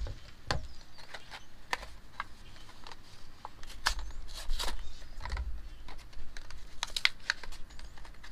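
Small plastic clicks and taps at irregular intervals as hands handle halogen headlight bulbs and their plastic bases, with a few quicker clicks near the end.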